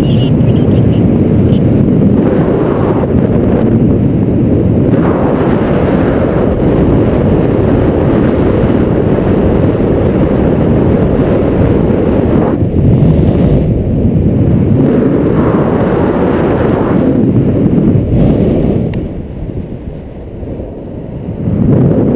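Wind buffeting a GoPro's microphone in paraglider flight: a loud, low rush that surges and eases, dropping quieter for a couple of seconds near the end.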